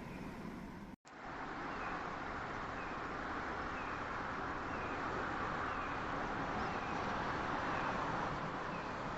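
Steady road and running noise of a car on the move, after a brief cut about a second in.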